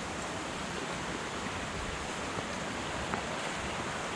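Steady rush of a river flowing over flat rock ledges.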